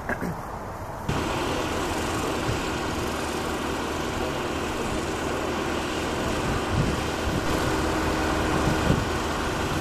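Ground support equipment engine idling steadily beside a parked airliner, coming in abruptly about a second in. Two light knocks are heard in the second half.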